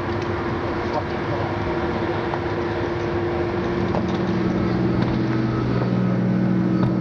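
Steady drone of a tugboat's engine as it pushes a barge, over a rush of wind and water noise. A deeper engine hum joins about halfway through.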